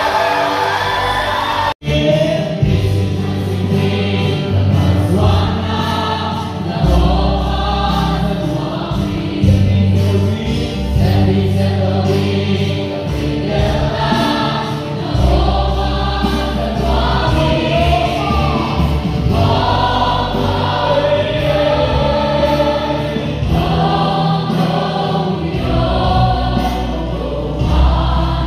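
A group of voices singing a worship song over band accompaniment with sustained bass notes. The sound cuts out for an instant about two seconds in.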